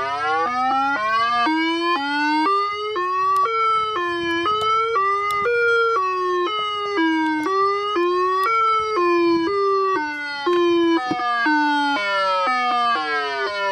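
Homemade electronic tornado siren, an Arduino-driven tone played through a PA speaker, sounding a steady, buzzy wail. The pitch climbs at first, then rises and falls in small steps as it is varied by hand.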